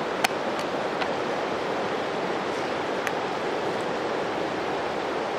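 Steady rush of river water, with a few light clicks as a Benchmade Bushcrafter knife is drawn from its leather sheath; the sharpest click comes about a quarter second in.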